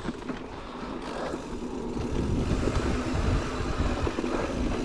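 Electric mountain bike's drive motor running steadily under pedal assist as the rider tries to ride out of a muddy rut where he was stuck, with a low rumbling noise that grows louder over the first two seconds.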